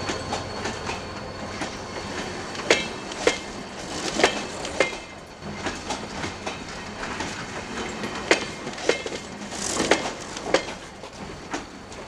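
Passenger coach wheels clacking over rail joints on a slow-moving train, with sharp knocks in pairs about half a second apart as each bogie's two axles cross a joint, over a steady rolling rumble.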